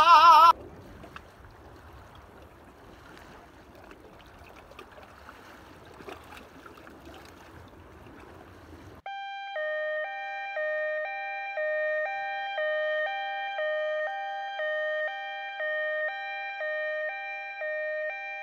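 Faint, even noise of wind and water. About nine seconds in it is cut off by louder background music: a clean, bell-like two-note figure repeating about once a second.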